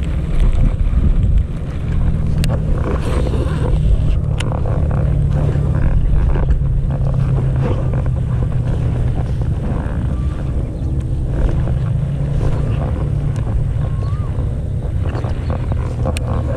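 Steady low hum of a small engine running, most likely the portable petrol water pump on the pond bank, with a few sharp clicks, the first about two and a half seconds in.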